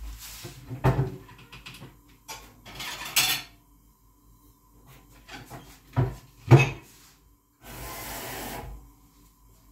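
Dishes being handled at a kitchen sink: clinks and sharp knocks of crockery and pots being set down, the loudest a pair of knocks past the middle, and a cupboard door opened. A tap runs for about a second near the end.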